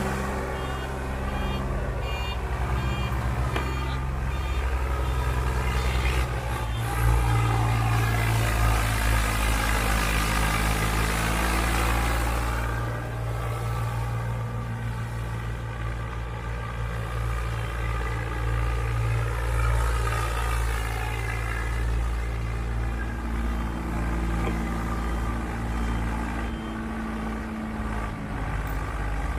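Tractor diesel engine running steadily under load, pulling a trolley heaped with soil, its low drone growing louder about seven seconds in.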